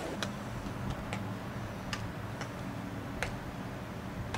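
Baseball fielding practice: about six sharp, irregular pops, typical of balls smacking into leather gloves, over a steady low hum.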